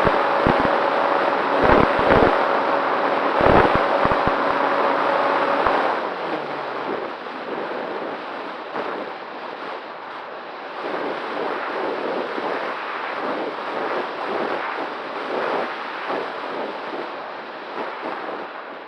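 Wind rushing over the microphone. For the first six seconds it is loud, with heavy low buffeting thumps. After that it drops to a quieter, uneven rush.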